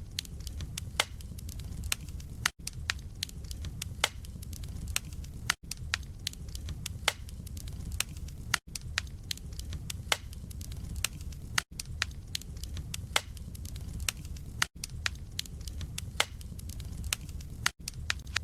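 Wood fire burning in a fireplace: logs crackling with many sharp pops and snaps over a steady low rumble of flame. There is a brief gap of near silence about every three seconds.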